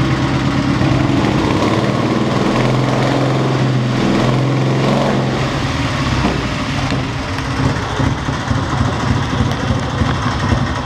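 A 1923 BMW R32's flat-twin side-valve engine running at low speed. It runs steadily at first, its speed shifting somewhat in the middle, then runs unevenly with a pulsing loudness in the second half.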